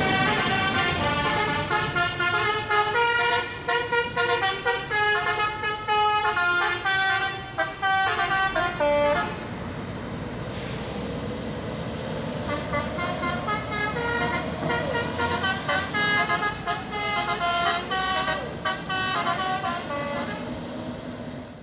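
Bus 'telolet' multi-tone air horn playing a rapid melody of short notes that step up and down in pitch, in two long runs with a lull about ten seconds in.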